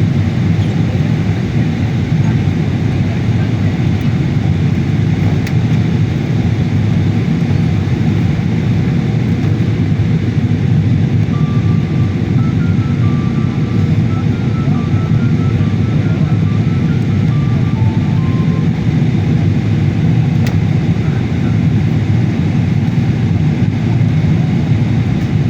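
Steady airliner cabin noise: the even roar of engines and airflow heard from inside the passenger cabin.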